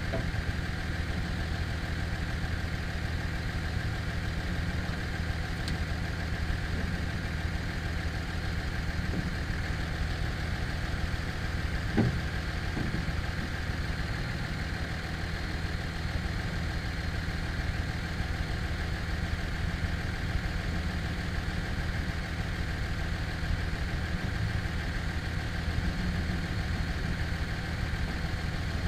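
Pickup truck's engine idling steadily while it charges a dead machine's batteries through jumper cables, with a single knock about halfway through.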